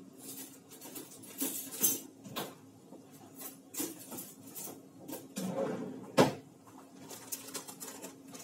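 Kitchen handling noise: dishes and utensils being moved, with scattered knocks and clinks, the sharpest about six seconds in, over a steady low hum.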